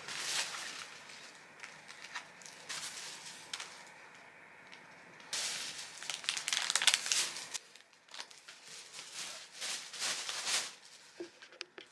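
Plastic housing of a small Bluetooth speaker being cut away by hand: irregular scraping and crackling strokes, busiest about halfway through.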